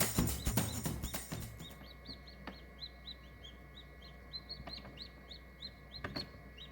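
A brood of young chicks peeping, with many short high cheeps coming a few per second. Percussive music fades out in the first second or two.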